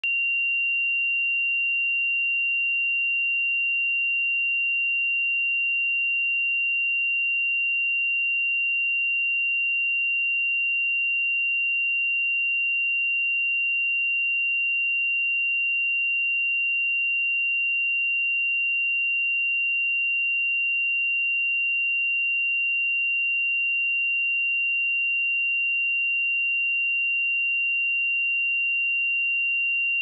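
A pure 2766 Hz sine-wave test tone, one steady high-pitched note held at a constant level without change.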